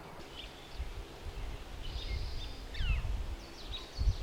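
Wild birds chirping, a scatter of short, high calls, some sweeping downward, over a low rumble that grows louder from about a second in.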